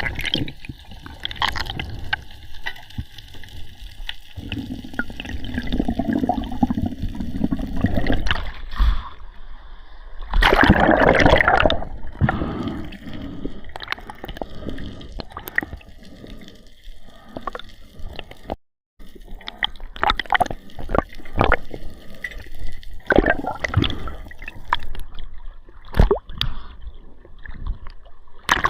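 Water gurgling and sloshing around the camera, with irregular splashes and surges of louder churning. The sound cuts out completely for a moment about two-thirds of the way through.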